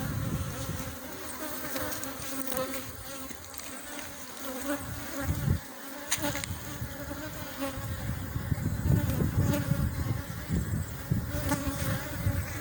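A swarm of honeybees buzzing steadily around an opened hive, one continuous many-toned hum. A low rumble rises under it from about two-thirds of the way through, and there is a single sharp click near the middle.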